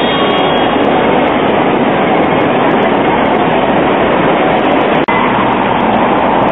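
Hong Kong double-deck electric tram running past on street track: a loud, steady rumble of wheels on rail. About five seconds in the sound breaks off sharply, and similar tram running noise carries on as heard from aboard a tram.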